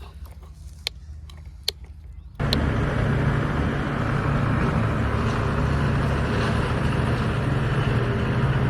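Vehicle motor running steadily. A faint low hum with a few clicks comes first, then about two and a half seconds in the sound jumps suddenly to a loud, even drone that holds to the end.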